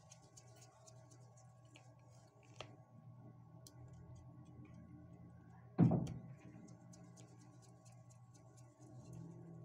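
Faint small clicks and scrapes of a screwdriver working the terminal screws on a power drill's trigger switch as the power-cord wires are fastened in, over a low steady hum. One loud knock about six seconds in.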